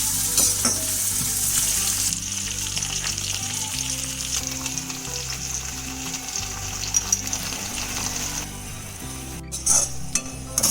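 Food sizzling as it fries in hot oil in a pan, loudest in the first couple of seconds and dying down near the end, followed by a few sharp clinks.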